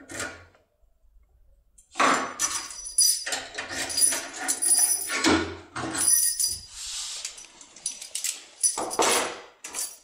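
Metal keys jangling and clinking as they are handled, a busy uneven clatter with bright ringing notes that starts about two seconds in.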